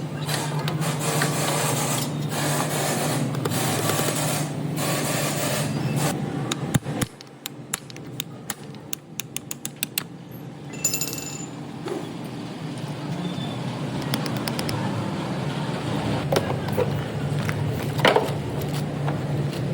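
A Toyota Camry running with a steady low hum, with a run of rapid clicks about seven to ten seconds in.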